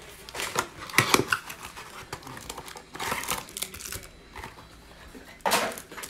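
A cardboard trading-card hanger box being opened and its plastic-wrapped stack of cards pulled out and handled, crinkling in short irregular bursts, with a louder burst near the end.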